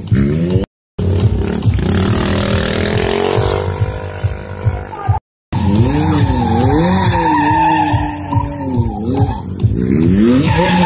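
Sport motorcycle engine revving up and down over and over, with tyres screeching on asphalt as it is spun and slid in stunt riding. The sound cuts out twice, briefly.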